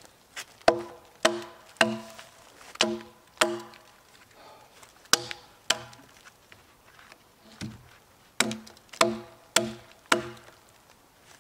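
Hatchet blows on stacked logs, about a dozen sharp knocks in runs of two or three, roughly two a second, with short pauses between runs. Each blow sets the log ringing briefly with a hollow, pitched tone.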